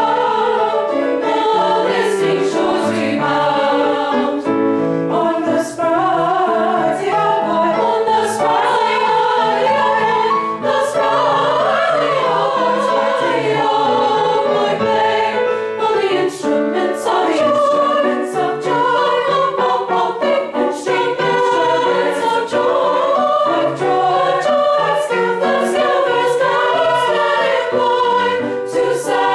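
Women's choir singing in harmony, several vocal lines held and moving together without a break.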